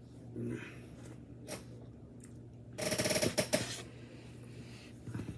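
Close-up eating sounds: a loud crackly crunch about three seconds in, lasting about a second, with softer mouth noises before it.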